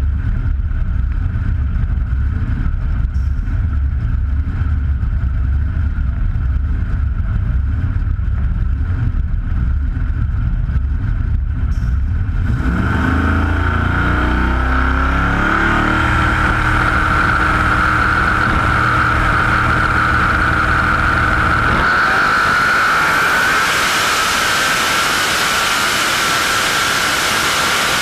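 Twin-turbo Ford Modular DOHC V8 of a drag-racing Mustang idling with a rough low rumble, then revving up about halfway through, with a steady high whine over it. Near the end the rumble gives way to a loud rushing noise as the car gets under way.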